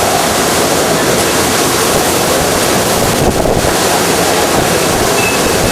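Hurricane Katrina's storm wind blowing hard and without a break, a loud steady rushing noise with wind buffeting the microphone.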